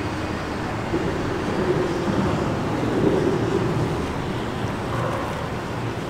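Steady hum of car traffic crossing the steel highway bridge overhead, mixed with motorboat engines on the lake, swelling louder for a couple of seconds early in the middle.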